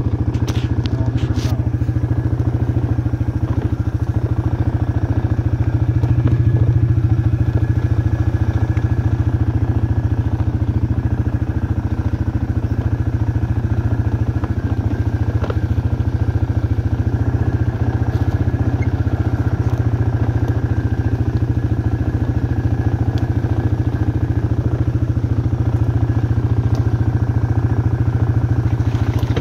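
Suzuki Ozark ATV's single-cylinder four-stroke engine running at a steady, even speed on a dirt trail ride, with a few light knocks from the machine over bumps.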